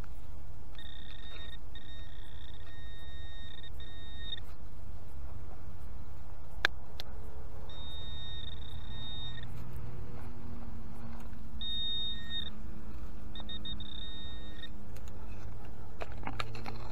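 Garrett ACE 200i metal detector sounding its steady high target tone through its speaker, in several beeps of about a second or more with short breaks, as the coil passes over a buried metal object. There is one sharp click a little before the middle.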